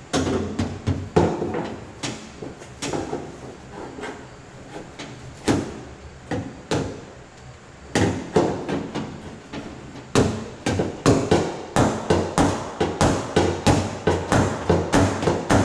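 Body hammer striking the steel skin of a Chevy Traverse door while the panel is pried up from inside the shell, roughing out a crease and dent. Each blow rings briefly; the strikes are scattered at first, then settle into a steady rhythm of about three a second in the second half.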